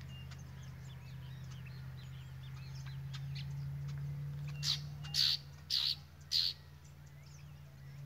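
House sparrows and other small birds chirping in a tree: many short, light chirps, with four loud, harsh rasps about half a second apart a little past halfway.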